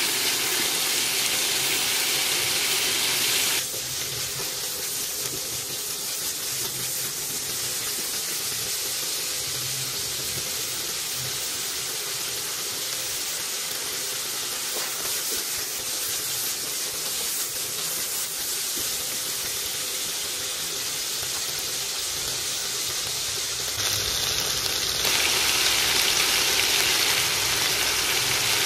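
Chopped meat sizzling in hot oil in a wok, a steady hiss that drops in level about three and a half seconds in and grows louder again near the end.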